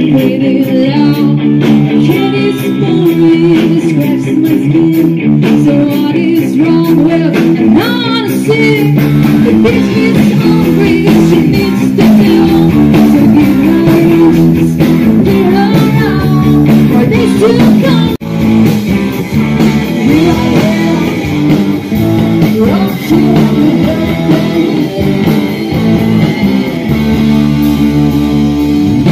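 Live rock band playing through stage PA speakers: electric guitars, bass and drums, with a woman singing.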